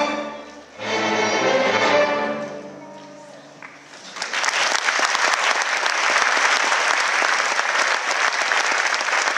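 School chamber string orchestra playing two final chords, the second fading away after about two seconds. About four seconds in, the audience starts applauding and keeps clapping steadily.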